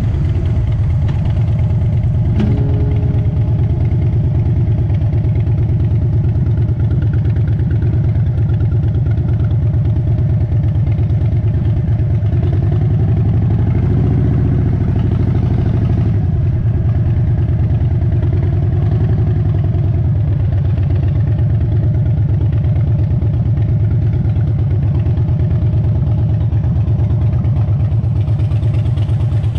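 Harley-Davidson V-twin motorcycle engine running steadily at close range, with a brief swell about halfway through.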